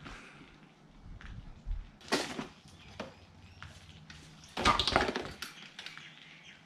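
Clicks and knocks of a pressure-washer hose and plastic fittings being handled, with a sharp knock about two seconds in. About two-thirds through a foam cannon topples and clatters on wet concrete, the loudest sound.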